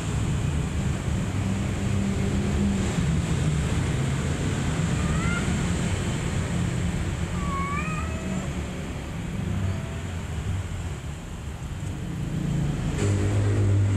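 A few faint, short kitten mews, each a quick rising call, around the middle, over a steady low background rumble that is the loudest sound throughout.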